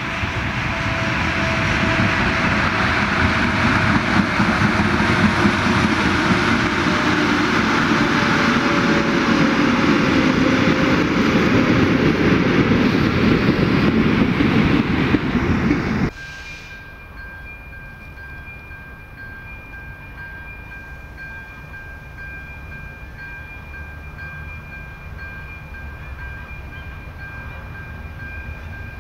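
A passenger train hauled by a pair of ČD class 113 electric locomotives approaching and passing close by: the rumble of its wheels on the rail grows loud, with a faint whine slowly falling in pitch. About sixteen seconds in it cuts off abruptly to a much quieter scene that holds two faint steady high tones.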